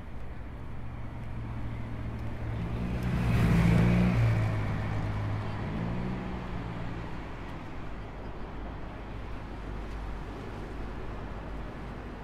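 A motor vehicle passing close by on a road, growing louder to a peak about three to four seconds in and dropping in pitch as it goes past, over a steady rumble of traffic.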